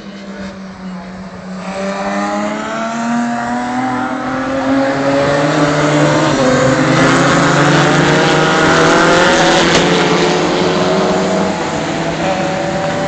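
A pack of circuit racing cars at high revs coming through a corner, several engine notes overlapping and gliding in pitch. The sound grows louder over the first half and is loudest around the middle, then eases slightly as the cars go by.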